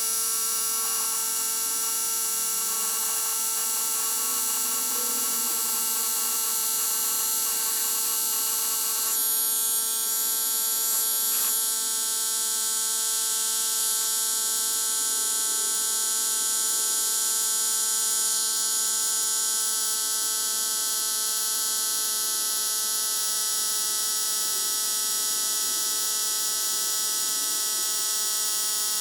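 Xiaomi Mijia portable electric air compressor running steadily as it inflates a flat tyre: a constant motor hum with a high hiss over it.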